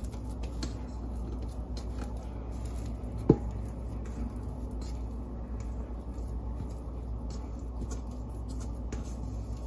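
Silicone spatula scraping soft, sticky dough out of a stainless steel mixing bowl: faint scrapes and soft squishing, with one sharp knock about three seconds in, over a steady low hum.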